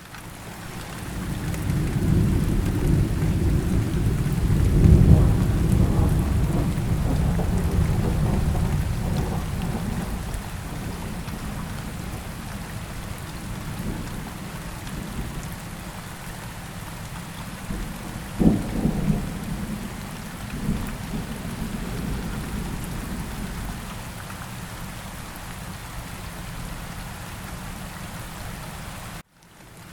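Steady rain with rolling thunder. A long low rumble swells over the first few seconds and fades away, then a sharper thunderclap comes a little past halfway, followed by a smaller rumble. The sound drops out briefly just before the end.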